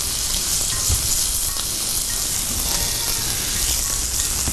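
Thin, flattened chicken breast fillets sizzling steadily on a hot ridged grill pan brushed with corn oil, just after being laid on.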